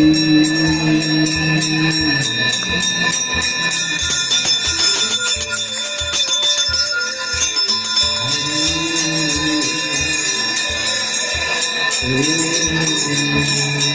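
Hindu aarti music: long held notes of a sung hymn over a beat about twice a second, with many bells ringing. The singing pauses for several seconds after about two seconds in, then returns.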